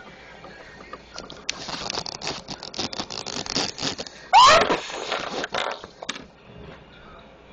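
Rustling, scraping and clicking handling noise as a handheld camera is moved about close against fabric and Lego bricks, with a short, loud, high squeal that glides in pitch about four seconds in.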